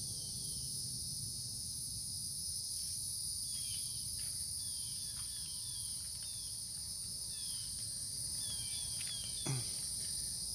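Steady high-pitched chorus of insects such as crickets, with many short falling chirps sounding over it.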